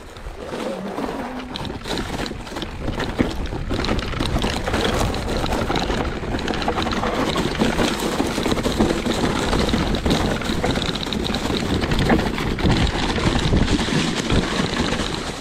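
Mountain bike being ridden down a rough trail: tyres rolling over dirt and the bike rattling and knocking over bumps, with wind rushing over the microphone.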